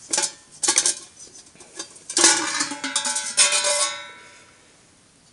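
A stainless steel champagne cooler's inner cylinder is lifted out of its outer shell. Metal scrapes and knocks first, then two clanks about two and three seconds in leave the steel ringing, dying away by about four and a half seconds.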